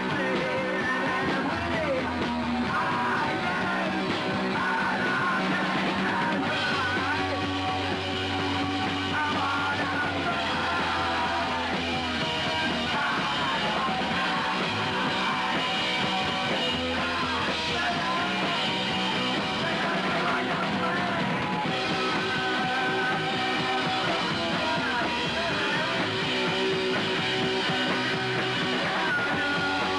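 Punk rock band playing live: electric guitar with yelled, shouted vocals, steady and loud throughout.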